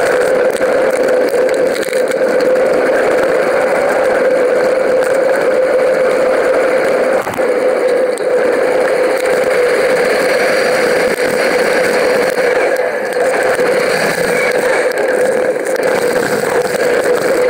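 Steady rushing noise of a moving mountain bike picked up by its mounted action camera: wind and rolling noise with a constant low drone.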